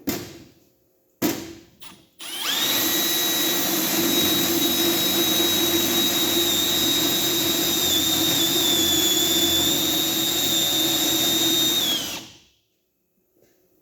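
A Milwaukee M12 Fuel brushless hammer drill/driver and an M18 brushed drill/driver run side by side, boring into wood at a steady speed for about ten seconds before both wind down and stop. A few short knocks come first.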